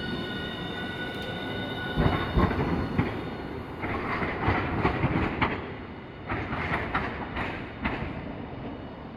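Hiroshima Electric Railway 1000-series low-floor tram (Green Mover LEX no. 1005) moving off: a steady high whine for the first second or so, then its wheels knocking sharply over rail joints a dozen times or so, with short squeals between the knocks, fading as it draws away.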